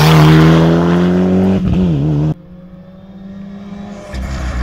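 Mitsubishi Lancer Evolution rally car's engine at full throttle passing close, rising in pitch as it accelerates and dipping briefly about two seconds in. The sound then cuts suddenly to a distant Ford Fiesta rally car's engine, quieter, growing louder near the end as the car approaches.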